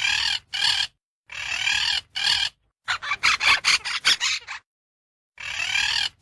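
Parrot squawking: harsh screeches in two pairs, then a quick run of about eight short squawks, then another pair near the end.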